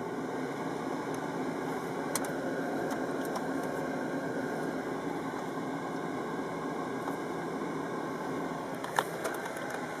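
VW Touareg's cabin heater blower fan running steadily, with only the rush of air through the dash vents heard and no noise from the motor itself, whose worn brushes have just been replaced. A single sharp click near the end.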